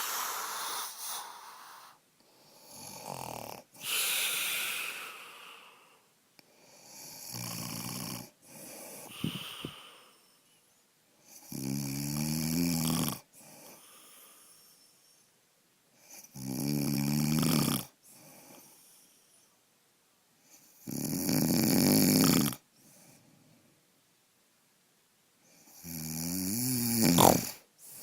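A man snoring in his sleep: one snore roughly every four to five seconds, the ones in the second half louder, with a low buzzing rattle.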